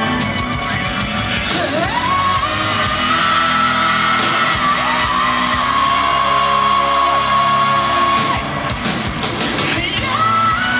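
Live rock band playing in a large hall, with long high held notes that slide up into pitch three times over the full band.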